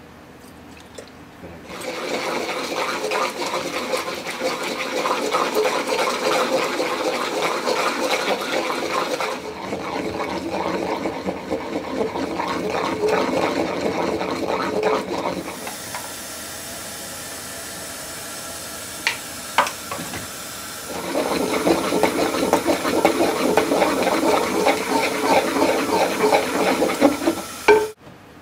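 Wooden pestle grinding a soft paste in a ceramic suribachi mortar: a fast, continuous scraping and rubbing against the ridged bowl. About halfway through the grinding pauses for several seconds, with a couple of sharp clicks, then starts again and stops suddenly near the end.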